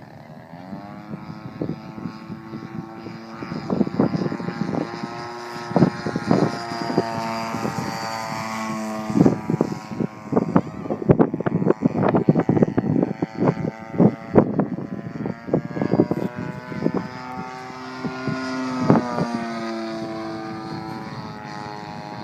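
RC aerobatic plane's motor and propeller running, its pitch rising and falling as the throttle is worked through the manoeuvres, with many short loud pops and knocks over it, thickest in the middle.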